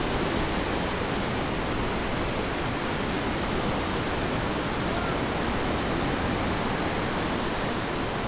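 Steady, even noise of surf breaking and washing up over the shallows at the water's edge.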